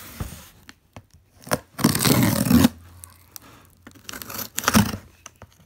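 Packing tape being cut and ripped off a cardboard shipping box, in a few separate rips; the longest comes about two seconds in, a shorter one near the end.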